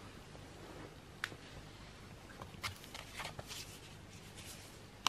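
Hands handling the cardboard box and card and paper items of a fan membership kit: a single sharp tick about a second in, a run of light rustles and clicks through the middle, and another sharp tick at the end.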